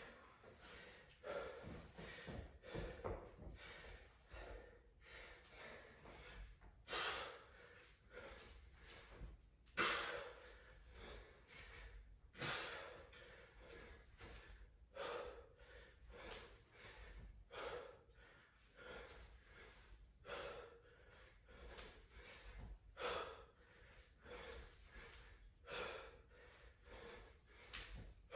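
Hard, heavy breathing of a man winded by intense exercise: sharp exhalations every second or two, the loudest about ten seconds in.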